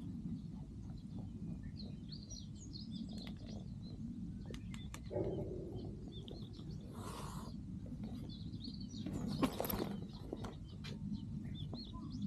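Outdoor ambience: a steady low rumble with faint bird chirps scattered through it, a few light clicks, and two brief rustles about seven and nine and a half seconds in, the second the loudest.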